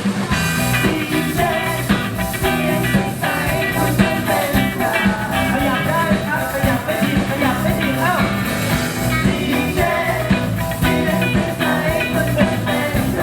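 A song playing, with a singing voice over a steady beat.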